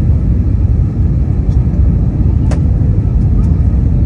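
Steady low roar of airliner cabin noise, engines and rushing airflow, heard from a passenger seat in an Airbus A320neo descending to land. A single small click about two and a half seconds in.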